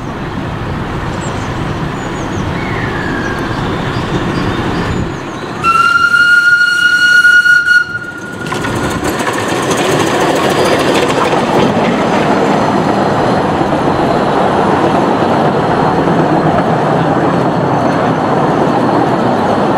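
A 1925 Krauss 4-6-2 steam locomotive on a 15-inch gauge line comes near, then sounds its steam whistle: one steady tone held for about two seconds, the loudest sound here. Its coaches then roll past with a steady clatter of wheels on the rails.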